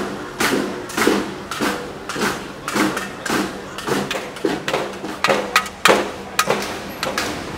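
Repeated banging strikes, about two to three a second in an uneven rhythm, each with a brief ringing tail, over a faint steady hum.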